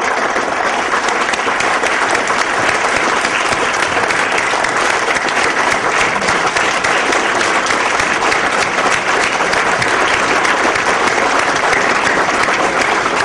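Conference audience applauding steadily: many people clapping at once.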